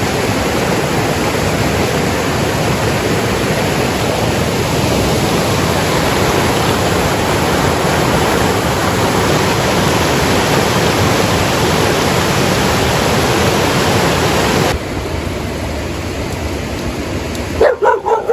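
Rushing water of a mountain stream, a loud steady rush that drops a little in level about fifteen seconds in. Near the end a dog barks a few times.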